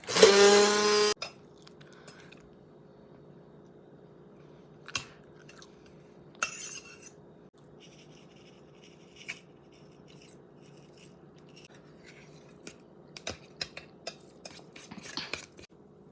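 A food processor runs in a short pulse of about a second, a loud pitched whir that spins up and cuts off. It is followed by scattered faint clicks and a few small high chirps.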